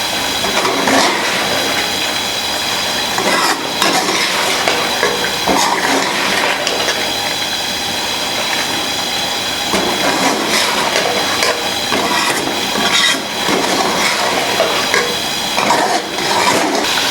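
A spoon stirring chicken and spices in a cooking pot, scraping and clinking against the pot over steady frying, mixing the masala through the meat.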